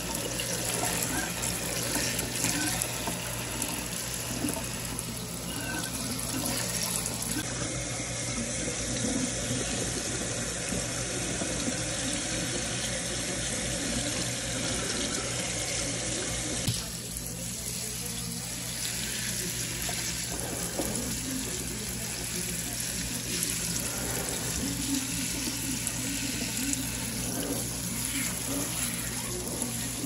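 Kitchen tap running onto vegetables and fruit in a stainless steel sink, water splashing steadily as the produce is rinsed. The sound changes abruptly twice, about a quarter of the way in and just past halfway.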